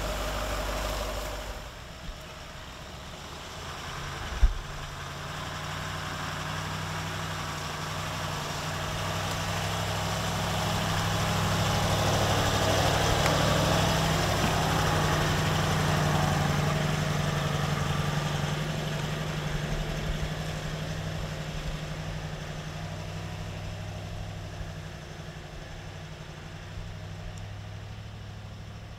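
Range Rover L322's TDV8 diesel engine running at low revs as the SUV crawls across grass, growing louder as it passes close by near the middle and fading as it drives away. A single sharp knock about four seconds in.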